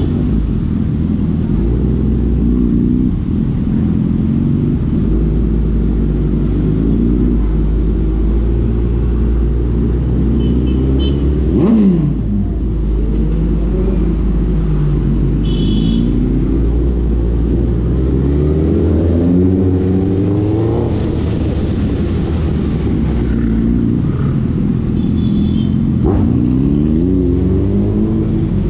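Suzuki Hayabusa Gen3's inline-four engine through an Ixil aftermarket exhaust, riding along with the pitch climbing and dropping again and again as the bike accelerates and eases off. About twelve seconds in, a sharp rev peaks and falls away, the loudest moment.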